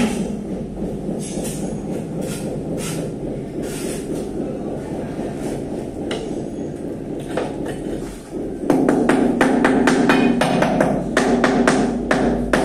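Machinery running with a steady rumble and scattered knocks. About nine seconds in it grows louder, with a quick run of clattering knocks.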